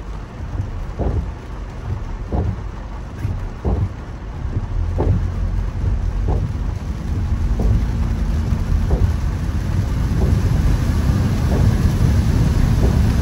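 Heavy rain and road noise heard from inside a car on a wet road, with the windscreen wipers swishing at an even beat of about one stroke every 1.3 seconds. The low rumble of tyres and spray grows louder from about four seconds in.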